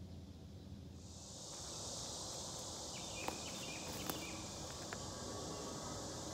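Steady high-pitched drone of insects in summer woodland, setting in about a second in, with a couple of sharp clicks about three and four seconds in.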